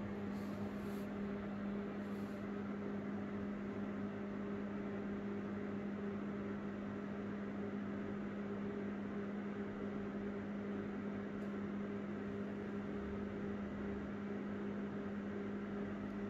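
A steady, unchanging hum with a constant low tone, like a machine running in the room.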